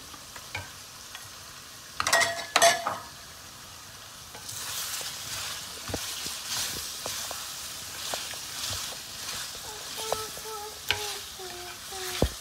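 Wooden spoon stirring mutton and freshly added spices in hot oil in a stainless steel pot, the sizzle swelling and falling with each stroke. A cluster of loud clinks and knocks about two seconds in.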